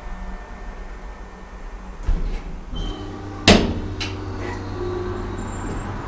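Deve/Schindler hydraulic elevator: a dull thump about two seconds in and a sharp clunk about halfway through, followed by a steady low hum.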